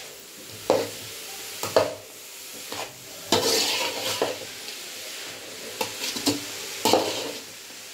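Flat spatula stirring and scraping grated carrots against a large metal kadai, a stroke every second or so with one longer scrape near the middle. A steady sizzle runs underneath from the carrots frying in ghee.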